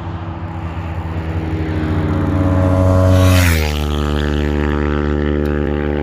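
Yamaha R3's parallel-twin engine as the bike rides past: its note climbs steadily while accelerating toward the microphone, peaks at its loudest about three and a half seconds in, then drops sharply in pitch and runs on steady as it moves away.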